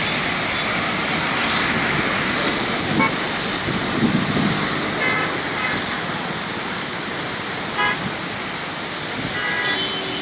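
Steady rushing of the Tawi river in flood, with a few short vehicle horn toots over it.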